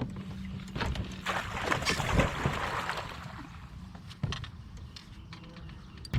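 Water splashing and sloshing at the side of a kayak as a hooked bass is fought and brought aboard, loudest between about one and three seconds in, followed by a sharp knock.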